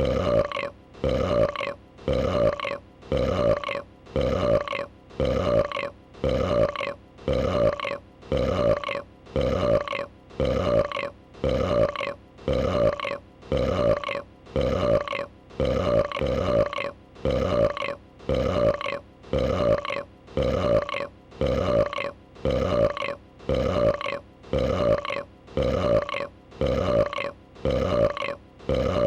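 A female dragon's burp, a short throaty pitched belch, repeated over and over at an even pace of about one a second, each burp sagging slightly in pitch.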